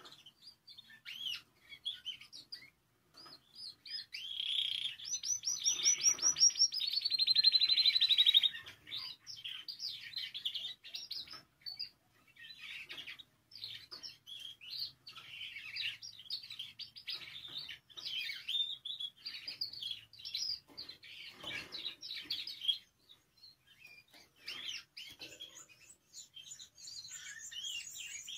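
Spanish timbrado canary singing a long, varied song of rolls and trills. About four seconds in comes a loud, fast trill of rapidly repeated notes that drops in pitch, the loudest part; the song then goes on in shorter phrases with brief pauses.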